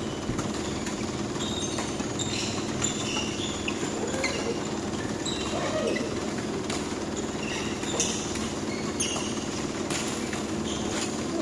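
Badminton doubles rally: sharp racket strikes on the shuttlecock at irregular intervals, with short high squeaks of court shoes on the hall floor, over a steady hum.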